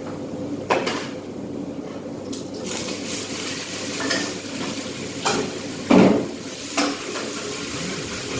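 Chicken and fish balls frying in oil in a pan, stirred with a metal utensil: a steady sizzle with scraping, and sharp clanks against the pan about a second in and three times between five and seven seconds in.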